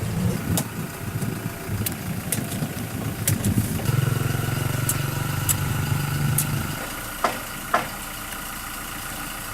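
An engine running steadily at idle, which cuts off about seven seconds in, with scattered light clicks and two sharp knocks shortly after it stops.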